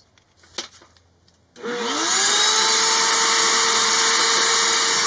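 Shop vacuum switched on about a second and a half in: a few faint handling clicks, then the motor spins up with a quick rising whine and settles into a steady, loud run with an even hum and rush of air.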